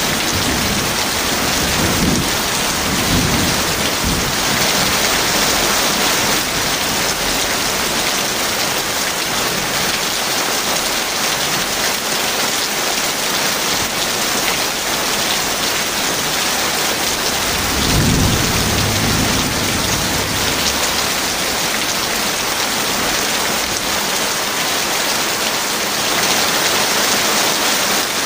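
Heavy rain falling steadily, with low thunder rumbling in the first few seconds and again about two-thirds of the way through.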